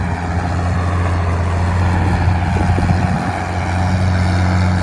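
Truck engine idling steadily, a deep even rumble.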